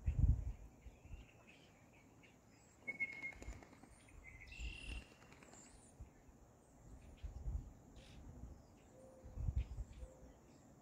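Small birds chirping and calling now and then, with short whistled notes about three and five seconds in, over intermittent low rumbles on the microphone.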